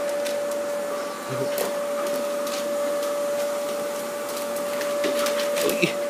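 A steady machine whine held at one pitch over a hissing background, with scattered light clicks and taps.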